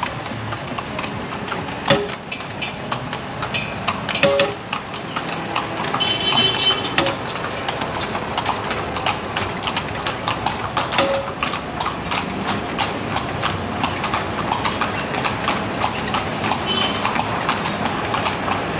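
Carriage horse's hooves clip-clopping at a walk on a paved street as it pulls the carriage, a continuing run of hoofbeats.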